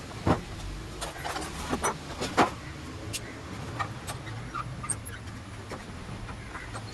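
Scattered sharp clicks and light knocks from handling gas stove parts during repair work, over a low steady hum; the two loudest come early and about a third of the way through.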